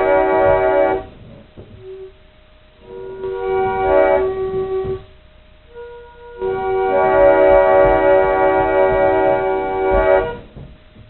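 Old pump organ sounding a D# minor seventh chord (D#, F#, A#, C#) as an imitation of an SL4T locomotive air horn, in three held blasts: one cutting off about a second in, a shorter one around three to five seconds, and a long one from about six and a half to ten seconds. A single stray note sounds briefly between the blasts.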